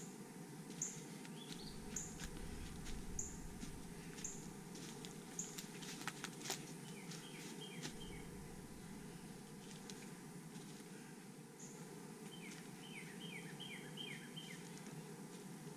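Faint forest birdsong: one bird repeats a short, high note about once a second, and another sings two quick runs of down-slurred notes. Scattered light clicks and a low rumble from the handheld camera and footsteps run under it.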